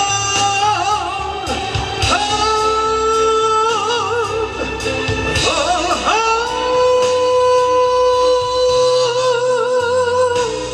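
A man singing a slow song over instrumental accompaniment, holding long notes that end in vibrato. The longest note runs for about four seconds from a little past the middle.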